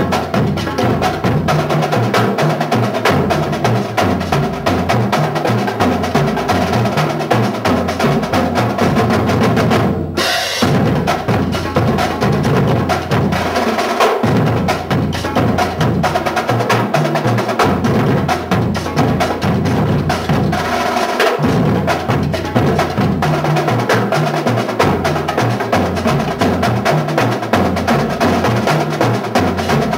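Marching drumline playing a cadence together: rapid snare drum strokes with tenor drums and tuned bass drums, the bass drums passing notes at different pitches. A momentary break about ten seconds in.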